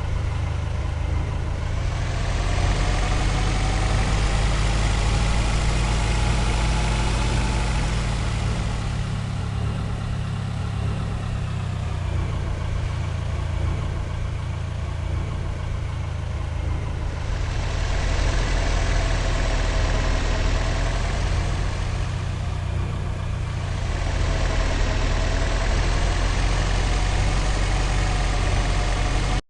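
Heavy engine of a construction vehicle running steadily with a deep rumble, growing louder for a few seconds and easing off again several times.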